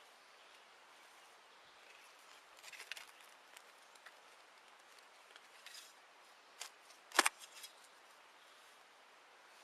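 Shovel cutting into turf and soil to dig a plug, with a few short crunching scrapes and clicks; the sharpest click comes about seven seconds in.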